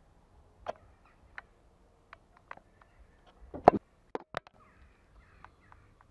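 A lynx moving close against the camera: scattered soft clicks and taps, with a few louder sharp knocks about three and a half to four and a half seconds in, as it comes right up to the lens.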